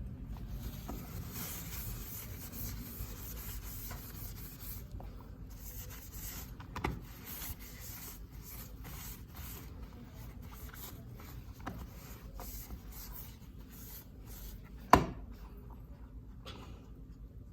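Rubbing and scraping handling noises that come and go, with a few small clicks and one sharp knock about fifteen seconds in.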